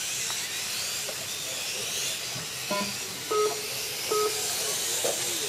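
1/8-scale RC racing motorcycles' motors whining, the pitch rising and falling as the bikes accelerate and slow through the corners, over a steady hiss. A few short electronic beeps sound about a second apart in the second half.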